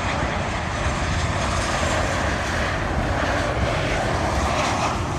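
Jet engine noise of a Boeing 737-800 coming in to land, its twin CFM56 turbofans making a steady rushing sound that grows slightly louder.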